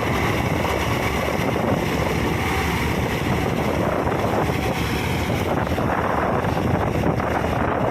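Combine harvester running, a loud steady noise, with wind buffeting the microphone.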